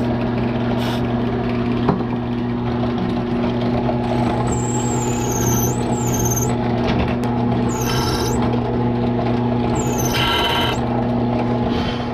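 Electric drill running steadily as its bit drills out the head of a stripped steel Allen-head screw in an aluminium servo horn. The bit squeals high on the metal several times, about four seconds in, around eight seconds and around ten seconds.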